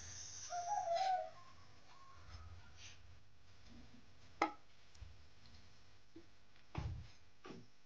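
A metal spoon and a plate being handled on a counter: a short wavering squeak about half a second in, then a sharp click in the middle and a dull knock near the end.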